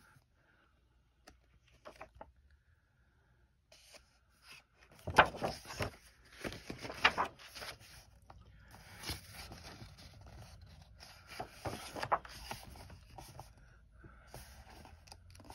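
Paper pages of a coloring book being turned and handled, with rustling and swishing. It is faint with a few light taps at first. The louder page swishes come from about five seconds in and again around twelve seconds.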